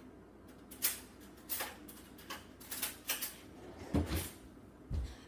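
Scattered sharp clicks and knocks from someone moving about and handling things out of view, with heavier low thuds about four and five seconds in.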